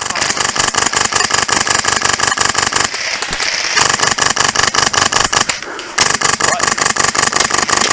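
Polarstar-powered HPA M4 airsoft rifle firing on full auto: three long bursts of rapid, evenly spaced shots with short pauses between them.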